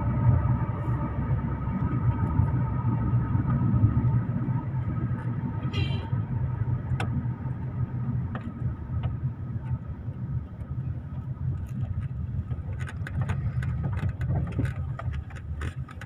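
Steady low rumble of a running vehicle, with a faint steady high hum over it and scattered light clicks, more of them in the second half.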